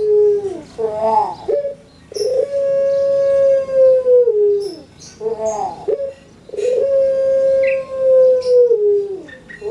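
A caged ringneck (Barbary) dove cooing over and over. Each coo is a long, held note of about two seconds that steps down and slides lower at its end, then a short wavering flourish follows. Two full coos are heard, after the tail of an earlier one.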